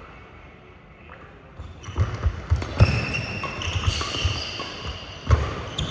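Badminton play on an indoor court: a run of dull thuds and a few sharp knocks from footfalls and racket hits, with high squeaks from shoes on the court floor, starting about two seconds in.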